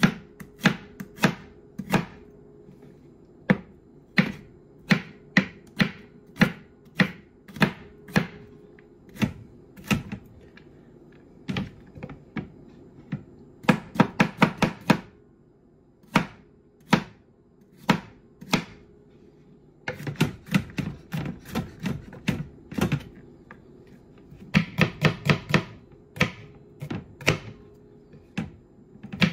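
Chef's knife chopping garlic cloves on a cutting board: a string of sharp knocks, spaced about a second apart at first, then quick runs of rapid chops around the middle and near the end.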